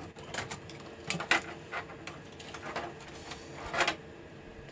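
Small clicks and rustles of ribbon cable and wiring being handled inside an open desktop computer's metal case. There are a couple of louder knocks about a second in and another near four seconds.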